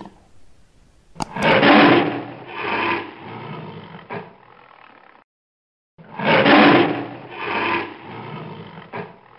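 Big-cat roar sound effect played twice, each time a few deep, pulsing roars that fade and then cut off abruptly into dead silence. Two sharp clicks come just before the first roar.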